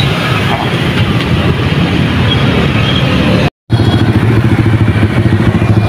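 Motorbike traffic passing on a street, a steady loud low rumble of engines. The sound drops out for a moment about three and a half seconds in, then carries on.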